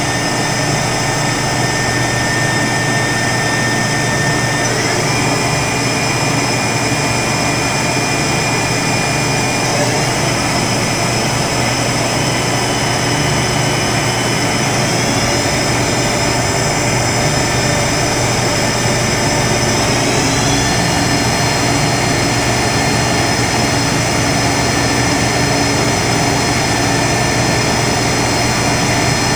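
Okuma & Howa ACT-20 CNC turning center running a program: a steady low machine hum under a high whine from the spindle drive. The whine steps up in pitch four times, about every five seconds, as the spindle is run up through higher speeds.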